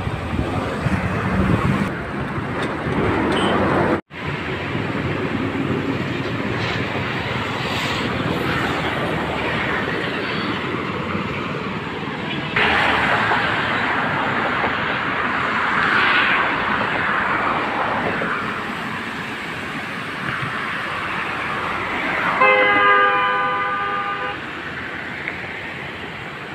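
Steady rushing noise of a river in heavy flood, with a vehicle horn sounding once for about a second and a half near the end.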